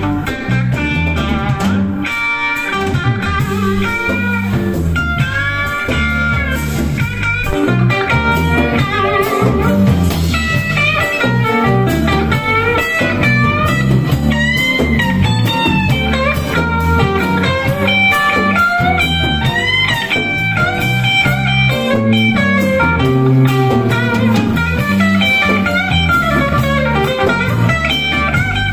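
Live blues: a Telecaster-style electric guitar plays lead lines full of bent notes over a bass-heavy band accompaniment, with no singing.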